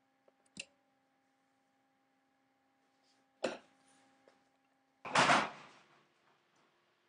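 Manual typewriter: a single key strike about half a second in and another sharper clack about three and a half seconds in. Just after five seconds comes the loudest sound, a rough noise lasting under a second.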